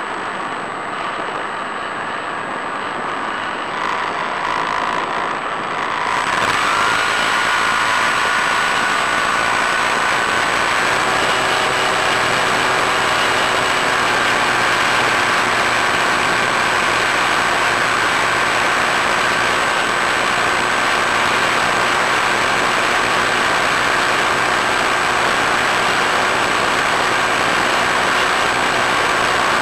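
Easystar model plane's electric motor and propeller running with a steady rush of noise. It gets louder about six seconds in, with a faint whine that rises slightly, as the motor speeds up.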